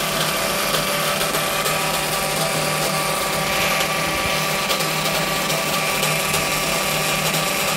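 1.5 HP (1.1 kW) three-phase induction motor running steadily at full speed across the line from a DOL starter: an even machine hum with several steady tones, on a normal 400 V supply.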